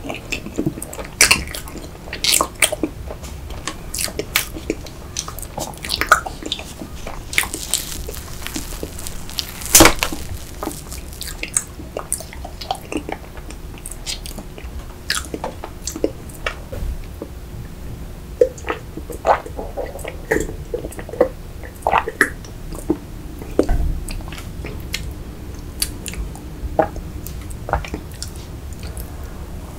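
Close-miked chewing of soft rainbow layer cake with cream and sprinkles, full of wet mouth clicks and smacks coming every second or so, with one especially loud click about ten seconds in.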